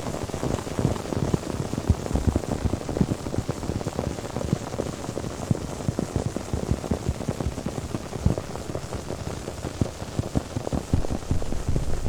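Popping candy crackling and fizzing close to the microphone: a dense, irregular patter of many tiny pops, with no letup.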